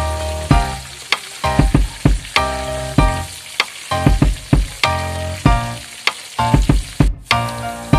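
Potato chunks sizzling in oil in a wok while a metal spatula stirs them, scraping and knocking against the pan about twice a second, each stroke leaving a short metallic ring. The sound drops out briefly near the end.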